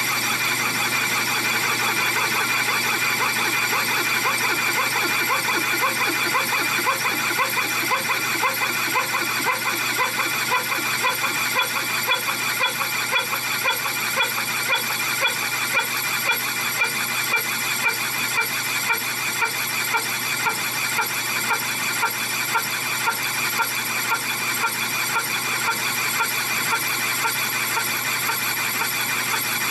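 Metal lathe trepanning into a steel clutch plate with a round-insert boring tool: the cut gives a steady high-pitched tone over the lathe's running. A regular pulsing beat sets in a few seconds in and carries on.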